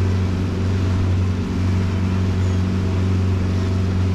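Outboard motor running steadily at cruising speed, a constant low drone, over the rush of wind and churning wake water.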